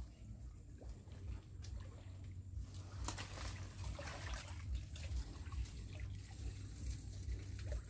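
Soft splashing and trickling of water from people wading and groping in shallow water, with a few small, sharper splashes.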